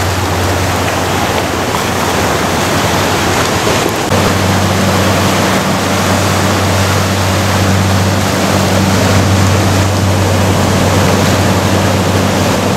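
Ocean surf breaking and washing in over beach rocks, a loud, steady rush of water. Underneath runs a steady low hum that grows stronger about four seconds in.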